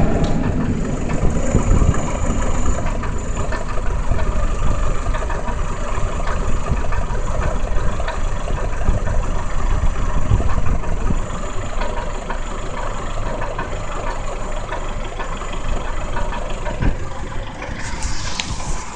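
Chevrolet Lacetti 1.4 16V's four-cylinder petrol engine idling unevenly, with knocks under the bonnet. The engine is misfiring on a cylinder once warm, a fault the owner traced to bad high-voltage spark plug leads.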